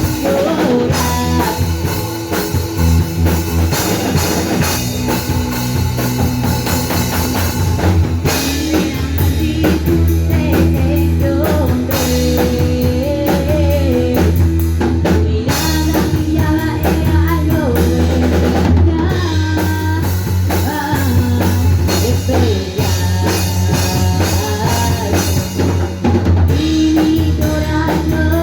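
Rock band playing loudly: a full drum kit with guitars and bass.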